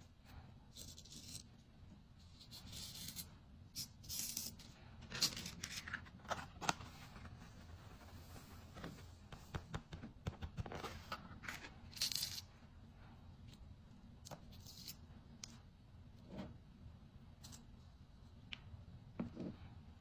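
Close handling of a sand-painting sheet: scratchy peeling and rustling in short irregular bursts, with a few sharper clicks.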